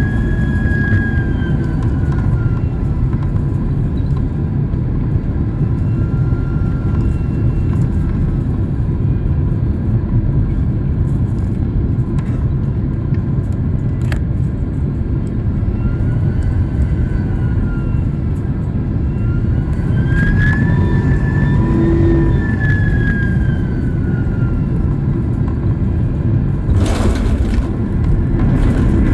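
Cabin noise of a jet airliner: a steady low rumble of engines and airflow, with the engines' whine rising and falling several times as thrust is changed on the approach. A brief louder rush of noise comes near the end.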